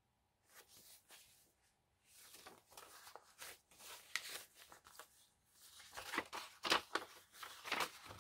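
Paper pages of a handmade junk journal rustling and crinkling as they are handled and turned: a run of short, soft rustles that grows louder after about six seconds.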